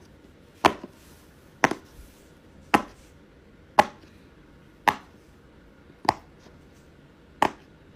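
Sharp single clicks or taps, about one a second and a little uneven, each one brief.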